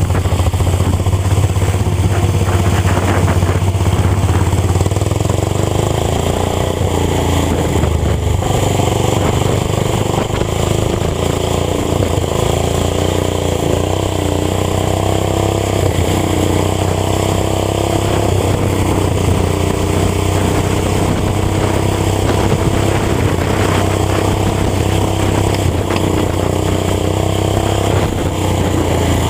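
Lawn tractors' small single-cylinder-class engines running hard at racing speed: a steady loud drone, its pitch rising and falling as the throttle changes.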